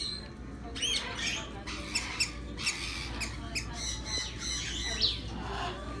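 Many caged pet birds chirping and squawking together, in quick high calls and short sweeps, with one louder falling squawk about five seconds in.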